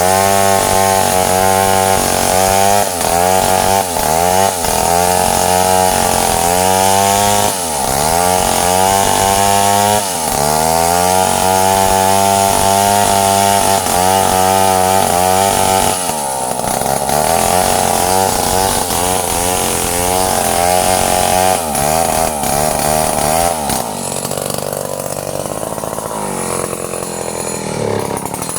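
Stihl chainsaw running hard, its engine pitch dipping and recovering again and again as it works through wood, then running lighter and quieter for the last few seconds.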